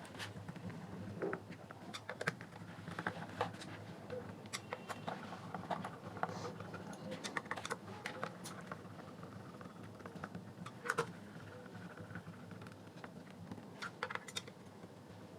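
Screwdriver and screws clicking and scraping against the plastic housing of a small Bluetooth speaker as it is screwed back together: an irregular run of light ticks.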